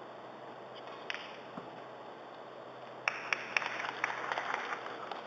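A single sharp click of snooker balls about a second in, then scattered audience clapping from about three seconds in that thickens into brief applause.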